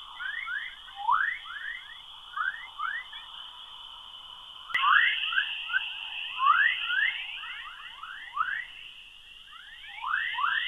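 Sonified recording of Earth's magnetospheric chorus waves from NASA's Van Allen Probes: a rapid run of rising chirps, like chirping birds, over a steady high hiss. A click comes about five seconds in, and the hiss is louder after it.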